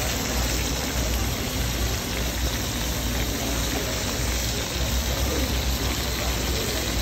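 Fish wrapped in banana leaf sizzling steadily in oil on a large flat griddle, with a steady low hum under it.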